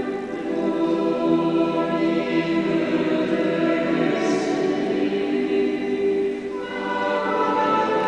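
Choir singing slow held notes that ring on in a large stone nave. A sung consonant hisses briefly about halfway, and a new phrase on different notes begins about two-thirds of the way through.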